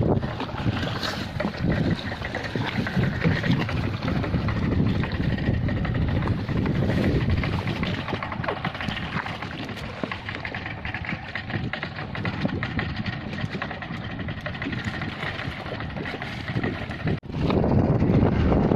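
Boat engine running steadily at sea, with a mix of water and motor noise; it cuts off abruptly near the end.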